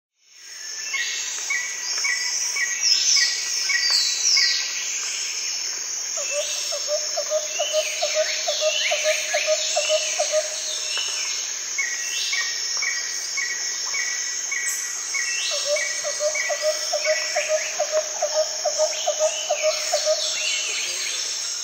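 Nature ambience: birds chirping and calling over a steady high-pitched insect drone, with a lower rapid trill twice, each lasting about four seconds. It fades in at the start.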